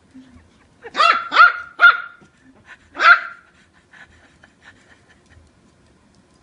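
Yorkshire Terrier puppy yapping in play: three quick high-pitched barks about a second in, then one more a second later.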